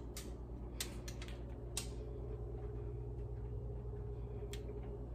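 A steady low hum with about five short, sharp clicks and taps scattered through it.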